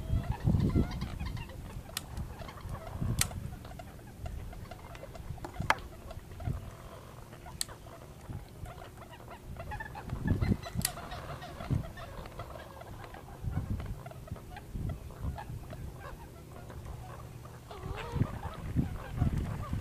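Intermittent clucking, fowl-like animal calls from the reed marsh, over irregular low rumbles, with a few sharp clicks scattered through.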